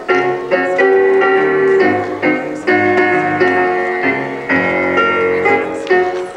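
Piano music with struck notes in a steady beat.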